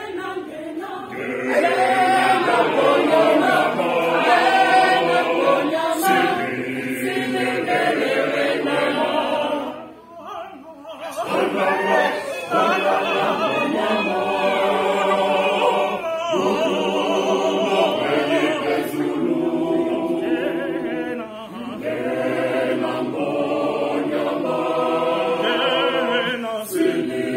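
Mixed choir of women's and men's voices singing a cappella in harmony, with a short pause about ten seconds in before the voices come back in together.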